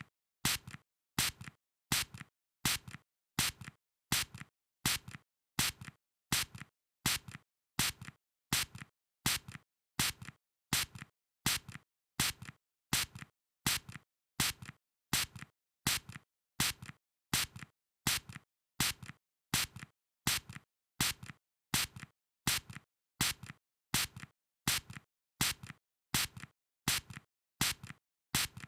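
Short bursts of spray, about three every two seconds, evenly spaced, each a sharp hiss with a softer tail.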